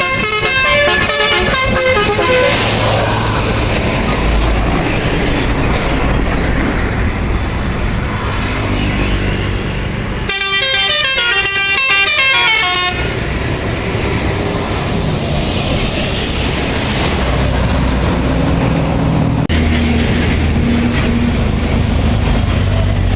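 Bus 'telolet' Basuri multi-tone horn playing a stepped melody, once at the very start and again for about three seconds about ten seconds in, over the steady running of passing bus engines and traffic.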